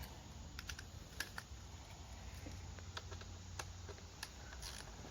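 Faint, irregular light clicks and taps of a 7 mm socket and ratchet on the ignition coil hold-down bolts of a Jaguar V8, over a low steady hum.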